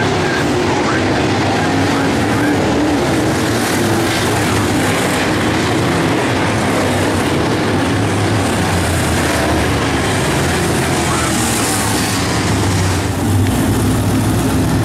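Several dirt late model race cars' V8 engines running at racing speed as the pack circles the dirt oval, a loud, steady engine noise with no let-up.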